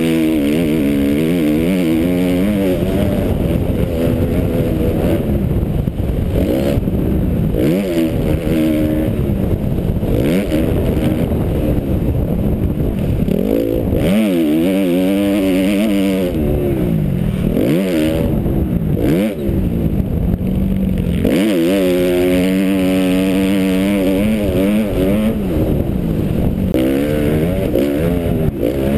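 2011 Suzuki RM-Z250 motocross bike's 250 cc four-stroke single-cylinder engine being ridden hard, revving up and dropping back over and over as the rider works the throttle and shifts gears.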